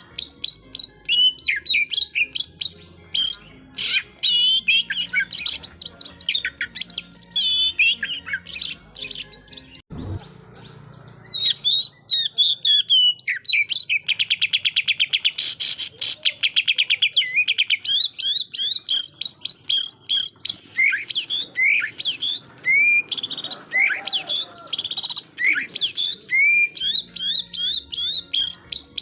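Oriental magpie-robin singing a loud, varied run of fast whistled phrases, including a dense rattle of rapidly repeated notes lasting about three seconds midway. This is the rapid 'shooting' song used to provoke rival males. About a third of the way in, the song breaks off briefly after a low thump.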